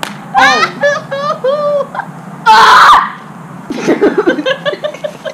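Two girls laughing and giggling in short repeated bursts, broken by a loud half-second shriek about two and a half seconds in.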